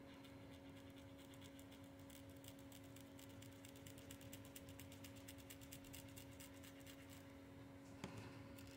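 Faint scratching and crackling of a plastic pry card being worked under a glued laptop battery cell to break the adhesive, over a steady low hum, with a small click near the end.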